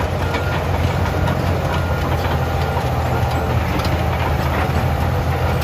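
Heavy engine idling steadily, a sound effect for a toy bulldozer.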